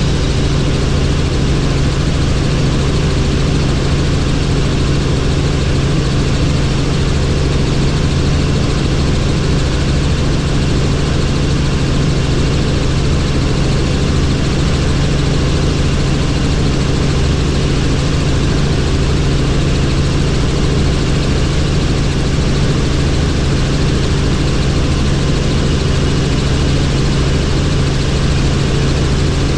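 Helicopter in flight: the rotor and engine make a steady, unbroken drone with a low hum.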